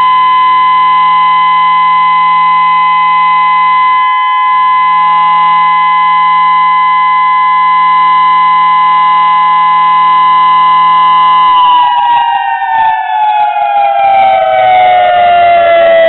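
Whelen electronic outdoor warning siren sounding a steady tone during its scheduled test, then starting to wind down about eleven seconds in, its pitch falling steadily.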